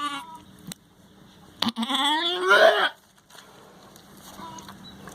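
A goat bleats once, about a second and a half in: a single loud call that rises and then falls in pitch, from a doe straining in labour as her kid is being born.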